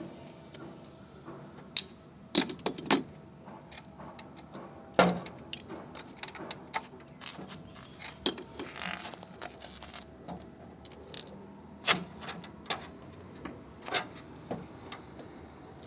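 Metal hand tools clinking and knocking irregularly as they are handled, with a short scrape about halfway through.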